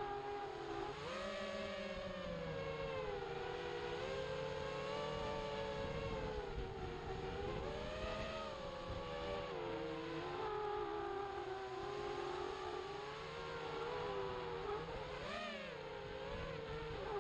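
XHOVER MXP200B FPV racing quadcopter's brushless motors and propellers whining, the pitch rising and falling continually with throttle changes, with a quick drop and sharp rise about 15 seconds in.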